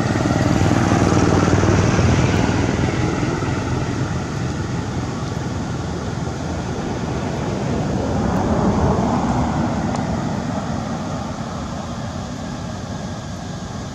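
Motor traffic passing by: a rushing vehicle noise swells and fades twice, about a second in and again around nine seconds in.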